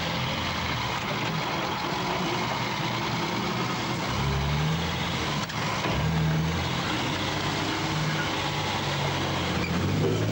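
Mercedes-Benz Unimog's diesel engine running under load, heard from inside the cab as the truck drives through deep mud and standing water. The engine note shifts and grows louder about four seconds in, and near the end muddy water splashes over the windscreen.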